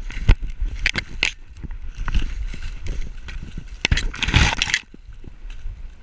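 Dry cornstalks and leaves rustling and scraping against a dog-mounted camera as the dog pushes through snow-covered corn, with crunching snow and sharp crackles. A louder burst of rustling comes about four seconds in, and it quiets near the end.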